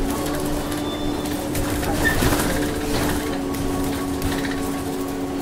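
Steady cabin noise inside a moving vehicle on a highway, a constant hum with a droning tone running under it.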